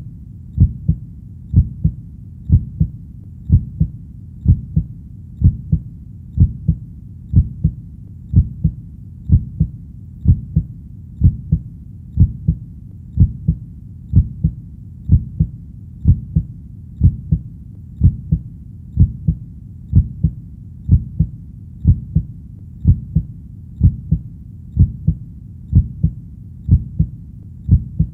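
Human heartbeat: a steady lub-dub of two low thumps, repeating about once a second, over a constant low rumble.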